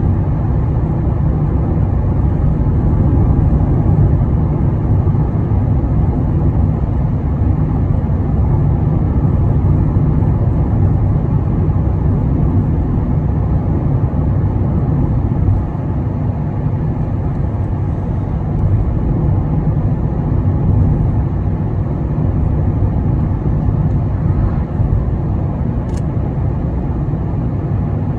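Steady road noise of a moving car heard from inside the cabin, a low even rumble of tyres and engine that drops slightly in level about halfway through.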